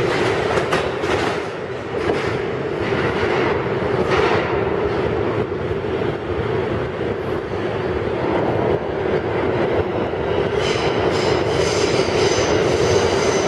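Siemens R160B subway train pulling away into the tunnel. Its wheels clatter over the rail joints at first, then it runs on with a steady rumble as it draws away. From about eleven seconds in a thin high-pitched wheel squeal joins it.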